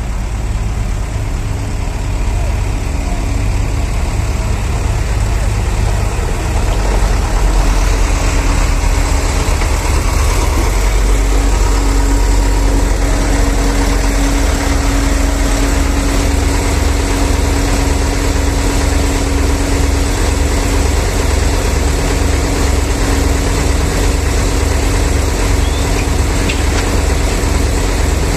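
Heavy diesel truck engine running steadily, growing louder about seven seconds in, with a steady whine joining it and a regular low pulsing in the second half.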